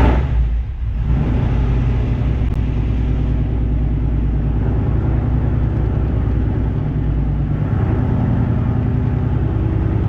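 Ford 4.6 two-valve V8 of a 2004 Mustang GT running just after a start: a brief loud surge at the very beginning, then a steady idle that steps down in pitch about eight seconds in.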